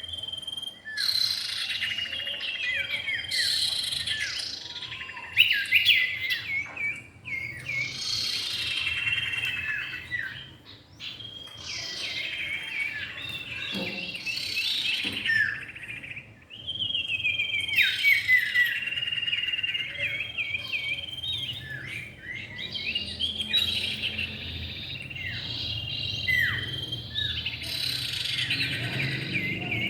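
Common ioras, male and female, calling: a near-continuous run of quick chirps, short trills and falling whistled notes, with brief lulls about a third and half of the way through.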